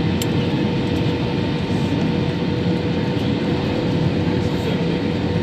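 Steady cabin noise of an Airbus airliner in flight: the even roar of the jet engines and airflow, with a faint constant hum tone running through it.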